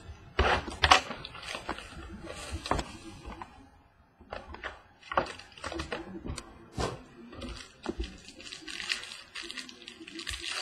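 Plastic shrink-wrap being torn and crinkled off a trading-card box, with scattered clicks and light knocks as the box is handled on the table.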